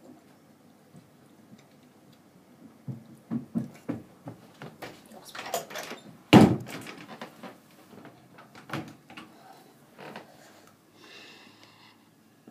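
Knocks, bumps and handling noises of someone moving about close to the microphone, with one loud thump about six seconds in.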